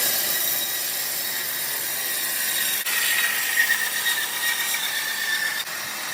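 Bandsaw sawmill cutting through a trembesi (rain tree) log: a steady hissing machine noise with a high whine. It breaks off abruptly twice, at about three seconds and near the end.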